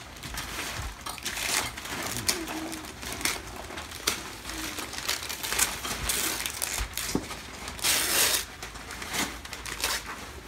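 Gift wrapping paper being torn and crumpled off a boxed present by hand, in irregular rustling rips, with tissue paper rustling near the end.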